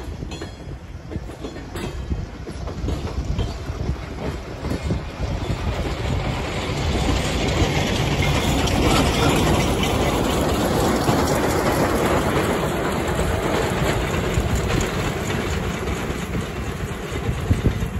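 Short passenger train rolling past, pushed by a Shay geared steam locomotive: wheels clicking over the rail joints as the cars go by, then a louder, steady rush of rolling and locomotive noise building from about six seconds in as the engine draws near.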